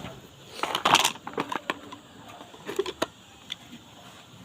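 Handling noise: a cluster of clicks and rattling knocks about a second in, then lighter scattered clicks.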